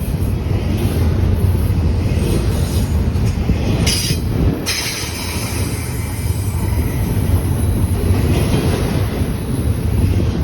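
Intermodal freight train cars rolling past, a steady rumble of wheels on rail, with a brief high hiss about four seconds in.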